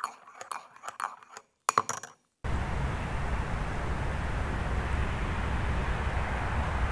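Quick sharp clinks and knocks for about two seconds. Then, after a short gap, a steady noise with a heavy low rumble and a hiss on top.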